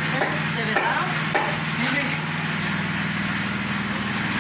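Concrete mixer's engine running steadily at a constant speed, with a few sharp knocks in the first second and a half from buckets of concrete being handed up the scaffold.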